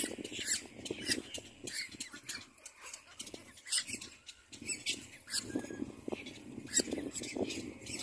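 Little black cormorant chick calling at the nest: short harsh squawks repeated about once or twice a second at uneven intervals.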